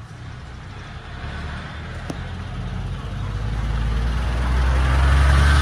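A heavy vehicle approaching, its deep rumble and road or track noise growing steadily louder and loudest near the end, with a single sharp click about two seconds in.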